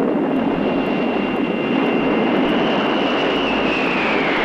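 Jet aircraft engines running over a dense rushing noise. A thin high whine holds steady, then begins to fall in pitch about three and a half seconds in.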